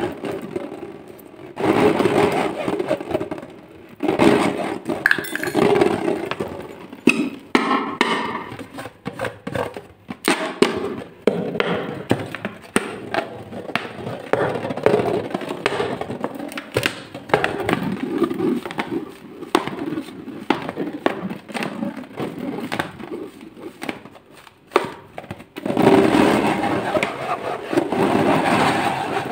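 Hands gripping, rubbing and squeezing a rubber balloon: irregular rubbing and scraping of the rubber with many scattered clicks and crackles.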